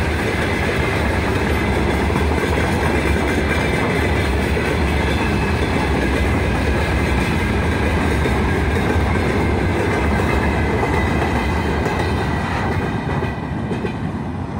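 Open freight wagons of a long freight train rolling past on the rails in a steady roll of wheel noise, fading over the last couple of seconds as the end of the train pulls away.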